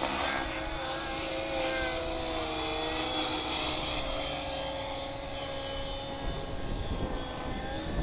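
Compass 6HV, a 600-size electric RC helicopter running on 12 cells, flying overhead. Its motor and rotor blades make a steady whine whose pitch wavers up and down as it manoeuvres.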